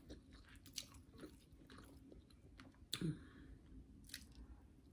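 Faint close-up mouth sounds of a person chewing food: scattered wet smacks and clicks, one louder smack about three seconds in.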